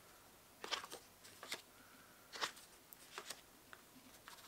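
Folded paper cards being handled: a few short, soft rustles and flicks of card stock as a card is picked up and opened.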